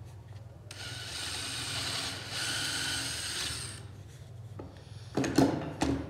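Cordless drill boring a hole through wood for about three seconds, its motor whine over the bit cutting, louder about halfway through. Near the end, a few sharp knocks as the drill is set down on the workbench.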